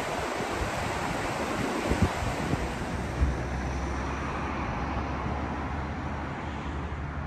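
Waterfall rushing in a steady, even roar of falling water, with a few low wind buffets on the microphone.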